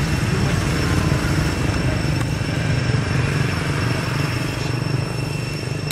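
A small engine running steadily: a low rumble, with a faint steady high tone above it.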